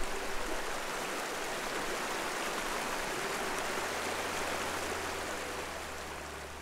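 Mountain stream rushing, a steady dense wash of water noise that eases slightly near the end.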